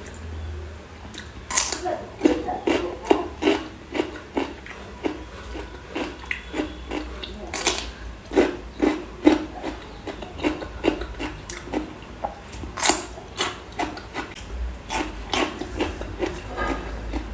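A person eating with her fingers close to the microphone: repeated short chewing and biting sounds, about two or three a second, with a low steady hum underneath.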